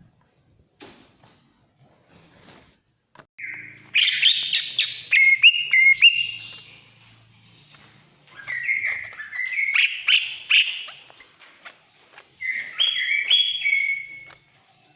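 Cucak ijo (green leafbird) singing shrill, loud whistled phrases mixed with quick sharp notes, in three bursts starting about four seconds in. This is the excited, full-volume song that bird-keepers call ngamuk.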